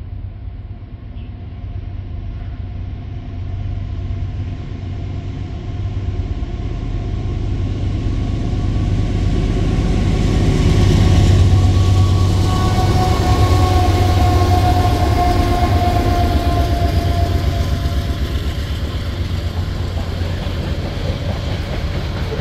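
CSX diesel freight train approaching and passing: the locomotive's engine rumble builds and is loudest about halfway, with a steady whine. It then gives way to the rolling and clacking of loaded covered hopper cars on the rails.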